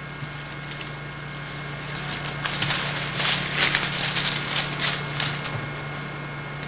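Leaves and branches rustling and crackling as a person pushes through dense leafy brush, loudest from about two seconds in to about five and a half, over a steady low hum.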